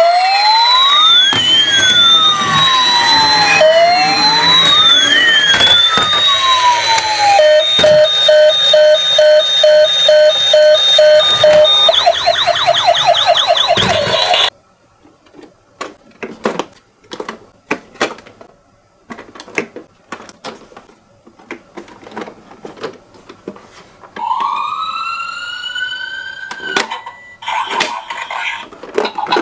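Toy ambulance's electronic siren cycling through its patterns: first a slow rising-and-falling wail, then a steady pulsing tone, then a fast yelp. It cuts off suddenly about halfway through. Scattered clicks and knocks follow, with a single rising tone near the end.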